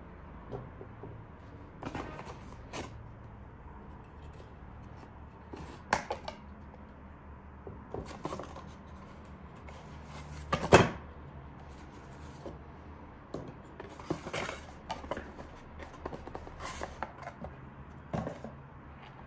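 Packaging being handled during the unboxing of a PC case fan: scattered clicks, taps and rustles, with one sharp knock about eleven seconds in, over a low steady hum.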